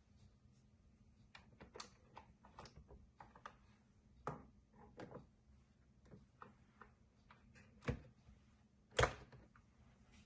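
Irregular light clicks and taps of hard objects being handled, with two louder knocks near the end.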